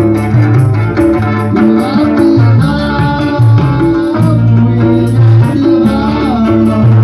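Live amplified orkes band music: a strong bass line, plucked strings including an oud, and a steady high percussion tick, with a man singing the melody into a microphone.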